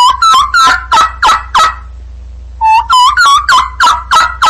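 Turkey gobbling twice: two runs of rapid, warbling notes, each about two seconds long, about a second apart. A steady low hum runs underneath.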